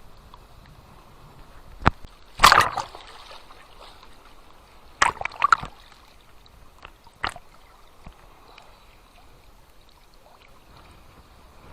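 Small sea waves lapping and splashing at the water's edge: a few sharp splashes, the loudest about two and a half seconds in, another cluster around five seconds and a single one near seven seconds, over a faint steady wash.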